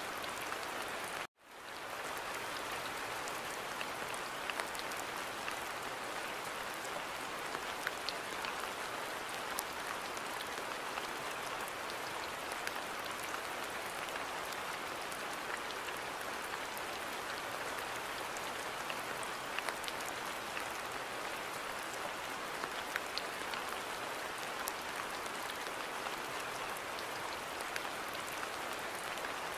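Steady rain falling on a garden, an even hiss with scattered ticks of individual drops. About a second in it cuts out to silence for a moment and then fades back in.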